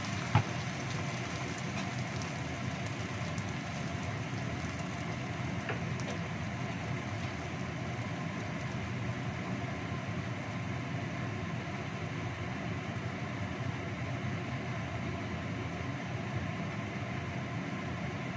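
Steady sizzling and burner noise from sliced chilies and onion frying in a wok over a gas stove, with a single knock about half a second in.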